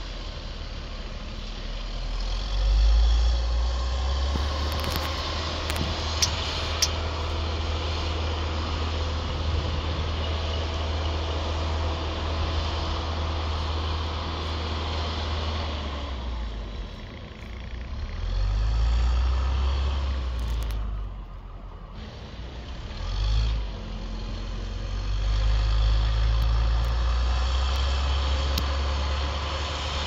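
John Deere backhoe loader's diesel engine working while plowing snow, a deep steady rumble that revs up and eases off several times as the load changes, with a brief lull a little past the middle.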